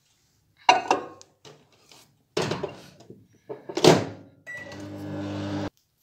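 A microwave oven being loaded and started: a few sharp knocks and clatters as the bowl goes in and the door is shut, then a short beep and the oven's steady electrical hum, which cuts off suddenly near the end.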